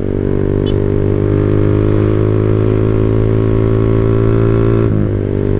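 Motorcycle engine running through a WRX GP5 R2 aftermarket exhaust, a 25 cm muffler with a half silencer insert, held at steady raised revs that drop back about five seconds in. The sound is somewhat bassy, which the owner puts down to a higher-lift, longer-duration camshaft.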